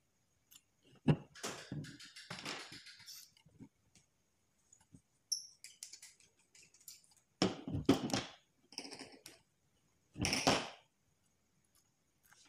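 Handling noise of rebuilding a vape atomizer: small metal clicks, taps and rustles of tweezers, wire and the atomizer deck, in scattered bursts with a short ping about five seconds in.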